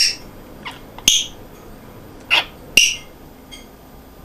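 African grey parrot making a few short, high chirps and squeaks spread across a few seconds, two of them set off by a sharp beak click.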